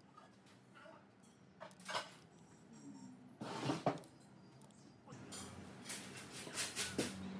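Small handwork on a painted metal motor housing: a craft knife tip scraping and picking at a vinyl decal, with light taps and crinkly bursts of vinyl peeling, the loudest about halfway through and a cluster near the end as a sticker is pressed on.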